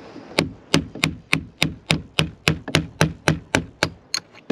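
Hammer striking a steel chisel held against old wooden boat planking, a steady run of about fourteen sharp blows, roughly three and a half a second, tailing off near the end. The chisel is hacking off old planking nails that could not be punched back in.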